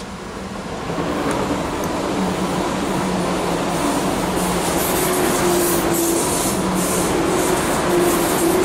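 Deutsche Bahn ICE high-speed electric train passing close by, growing louder over the first two seconds and then a steady rush of wheels on rail and air. A wavering hum from the traction equipment runs through it.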